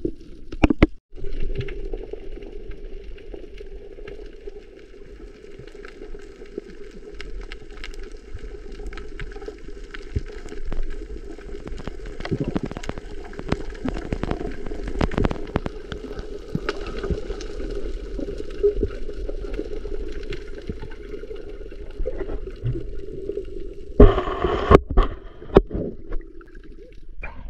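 Underwater sound picked up by a camera in its housing: a steady muffled water hiss with scattered clicks and crackles. Louder splashing about 24 seconds in, as the camera nears the surface.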